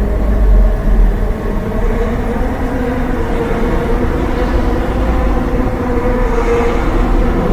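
Motorcycle engine running steadily with a deep low rumble, its pitch holding roughly even throughout.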